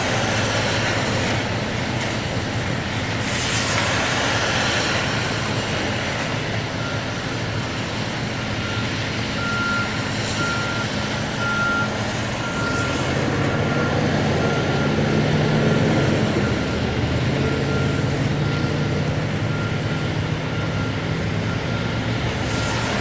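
Heavy diesel demolition machinery running, its engine swelling around the middle, with a backup alarm beeping steadily from about a quarter of the way in. Two bursts of harsh clattering noise come in the first few seconds.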